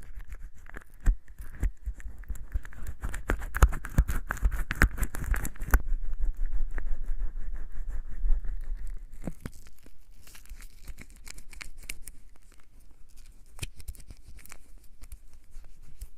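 Wet hands rubbing together in soap lather, a dense crackling squelch of foam and skin. It is busiest and loudest for about the first six seconds, then goes on softer and sparser.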